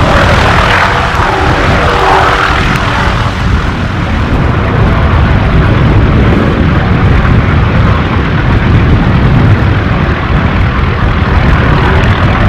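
Helicopter flying over: a loud, steady low drone of its rotor and engine.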